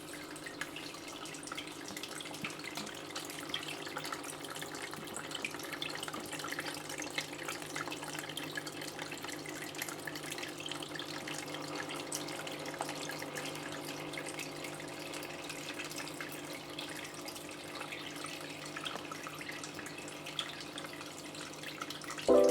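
Water trickling and splashing steadily in an aquaterrarium tank, with a patter of small drips.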